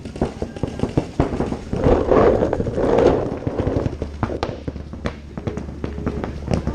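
Paintball markers firing: rapid, irregular pops and cracks throughout, with a louder rush of noise about two to four seconds in.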